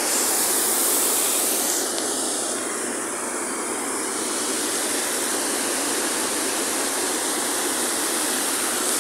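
Muddy floodwater rushing over the spillway of a full açude (a small reservoir dam) as it overflows, a steady rush with no break.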